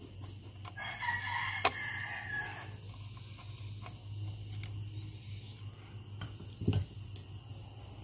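A rooster crows once, starting about a second in and lasting about two seconds, over a steady low hum and a few light clicks.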